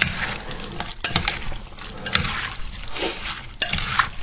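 Jicama, orange and red onion salad being tossed in its oily citrus dressing in a bowl: wet squelching and sloshing, with a few sharp clicks of the utensil against the bowl.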